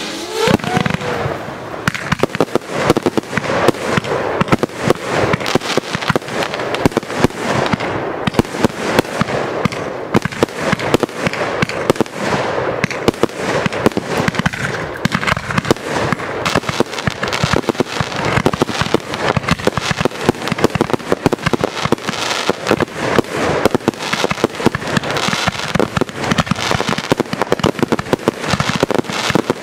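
Large fireworks display: aerial effects bursting overhead in a rapid, unbroken run of bangs and crackling, several a second.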